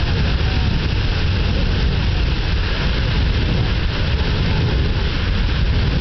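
Beehive Geyser erupting: its water column gives a steady, loud rushing noise with a deep rumble underneath.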